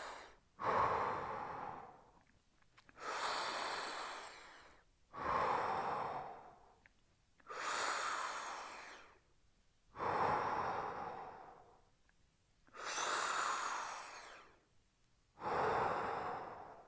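A man breathing slowly and deeply while holding a stretch: long, audible breaths in and out, alternating, about one every two and a half seconds.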